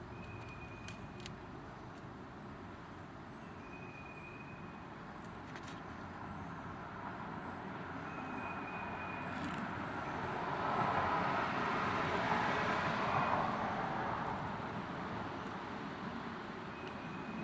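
Road traffic noise: a passing vehicle's tyre and engine sound that swells to a peak about two-thirds of the way through and then fades, over a steady background hum of traffic.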